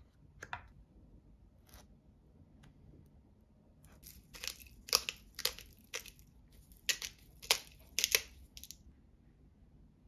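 Hand-twisted pepper grinder cracking black pepper: a run of about eight short grinding bursts, roughly two a second, after a few faint spoon scrapes.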